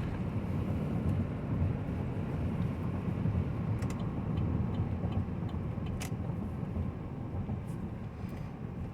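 Steady low road and drivetrain rumble of a 2019 Chevy Tahoe cruising at highway speed, heard from inside the cabin, with a few faint clicks.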